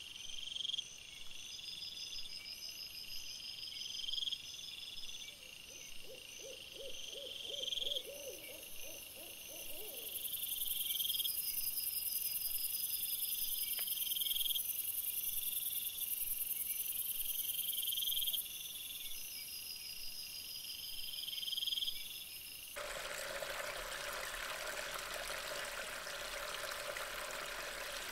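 Night insects chirping, a high call repeating about every second and a half, with a short run of low hoots about six to ten seconds in. About 23 seconds in the sound switches abruptly to a steady rush of rain.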